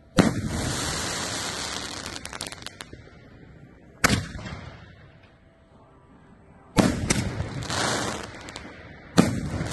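Seven-inch aerial firework shells going off as four sharp booms a few seconds apart: one at the start, one about four seconds in, one about seven seconds in and one near the end. Each boom is followed by a tail lasting a second or two, and after the first there are scattered crackles.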